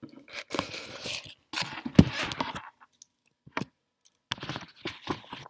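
Rustling and scraping handling noises with scattered clicks, and one sharp knock about two seconds in.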